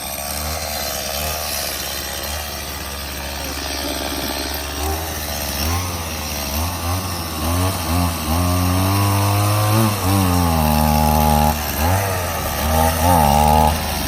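Small gasoline engine running, then revved up and down repeatedly from about five seconds in.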